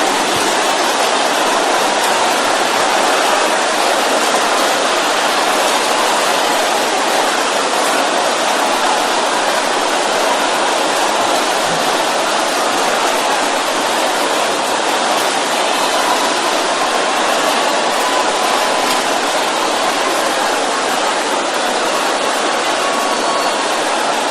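A large congregation praying aloud all at once: a loud, steady din of many voices blended together, with no single voice standing out.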